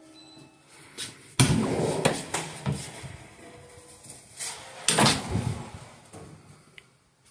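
Heavy door of a walk-in cooler being opened about a second and a half in and shut again around five seconds, each a sudden loud clunk, with a few lighter knocks in between.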